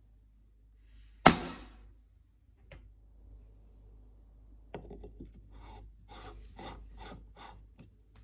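A single sharp knock about a second in, then a coffee distributor twisted on the filled portafilter basket: a run of short scraping rasps, about two a second, as it levels the ground coffee.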